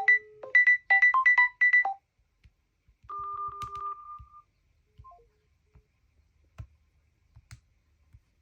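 Smartphone ringtone: a quick melody of short plucked electronic notes that stops about two seconds in, followed by a steady electronic beep lasting about a second, then a few faint blips and clicks.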